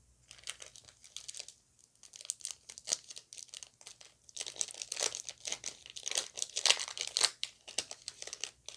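Crinkling and rustling of a foil Pokémon booster pack wrapper and cards being handled: a dense, irregular crackle that grows busiest about halfway through.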